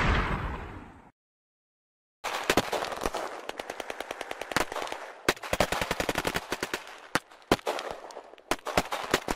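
The tail of a loud shot dies away in the first second; after about a second of silence, automatic gunfire begins, running in rapid bursts of about ten shots a second with louder single cracks standing out among them.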